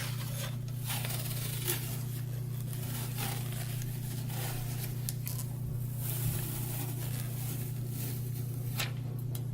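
Protective plastic film being peeled off a new smart lock: intermittent crinkling and scraping, over a steady low hum.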